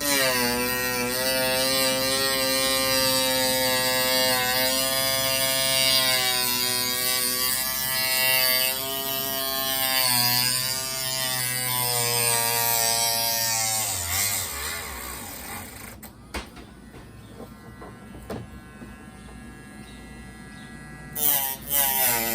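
Cordless rotary tool (Dremel-type) running at high speed, its whine dipping in pitch now and then as the bit bites into acrylic sheet, then winding down about fourteen seconds in.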